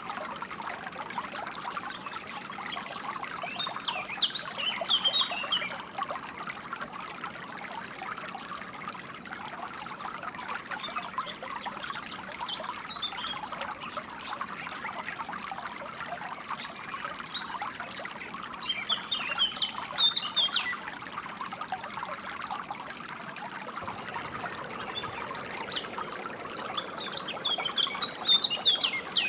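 Water trickling and flowing steadily in a stream, with songbirds chirping in quick high phrases over it several times: a few seconds in, around the middle, and near the end.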